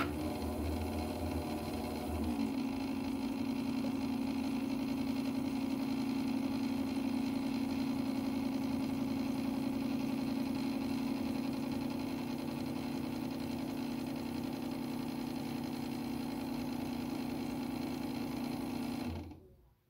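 Keurig coffee maker's pump running through a brew cycle: a steady, loud mechanical hum. The hum shifts about two seconds in and stops suddenly near the end. The owner finds the sound weird.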